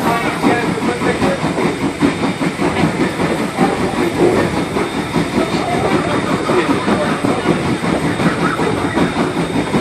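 Passenger train running along the track, heard from aboard: a steady, loud rumble and rattle of the coach and its wheels on the rails.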